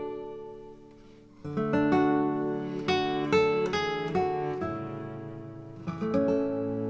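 Background music: acoustic guitar playing plucked and strummed chords, fading to a pause about a second in before a new phrase begins.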